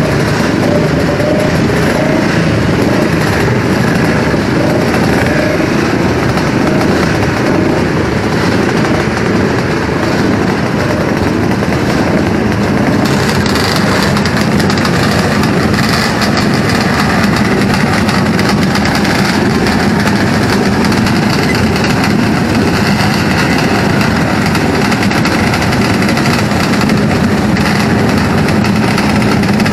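Many classic racing motorcycles running at once, a loud, steady mass of engine noise. About halfway through, the mix changes and a steadier low engine hum comes to the fore.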